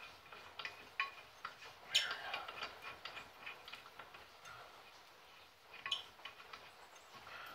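Scattered light metallic clicks and clinks of brake hardware being handled and fitted against the brake rotor, the sharpest about two seconds in and again near six seconds.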